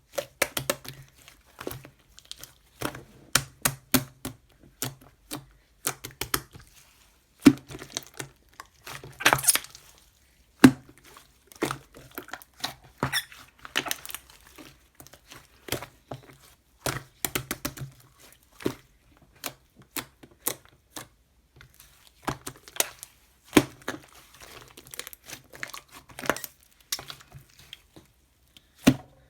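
Glucose slime squished and pressed by hand, giving irregular sharp clicks, crackles and pops.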